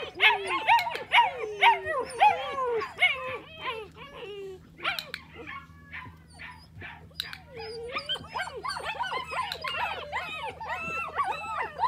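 Eight-week-old puppy whining and yelping in many short, high calls that rise and fall in pitch, coming several to the second. The calls thin out in the middle and come thickly again for the last few seconds.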